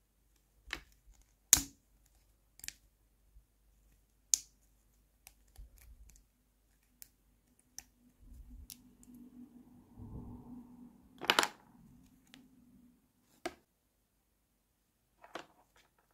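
Small pink plastic toy furniture pieces being twisted and snapped off a plastic sprue by hand: a series of sharp plastic clicks and snaps at irregular intervals, the loudest about a second and a half in, with others at about four seconds and eleven seconds. A faint low drone sits under the clicks in the middle.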